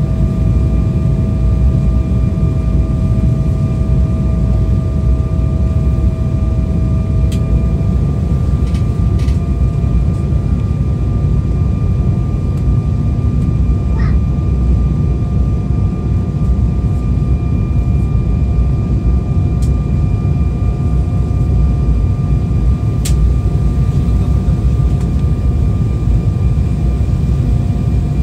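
Cabin noise inside an Embraer 190 on approach: the steady roar of airflow and its two GE CF34 turbofans, with a steady engine whine whose pitch steps up slightly about eight seconds in. A few faint clicks are heard along the way.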